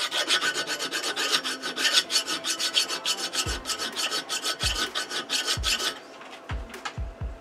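A hand file scraping in quick, even strokes across a metal fitting from a liquid level gauge, cutting into the surface to test what metal it is. The filing stops suddenly about six seconds in.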